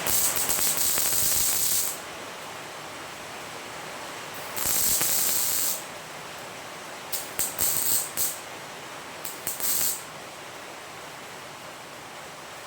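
MIG welder arc crackling and hissing in bursts as tack welds are laid on a 2 mm steel bracket: a burst of about two seconds, another of about a second midway, then several short quick tacks.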